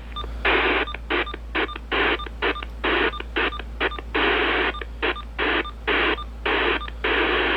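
Static hiss from the Uniden BC370CRS scanner radio's speaker, cutting in and out over and over in short bursts of uneven length, with brief gaps of quiet between.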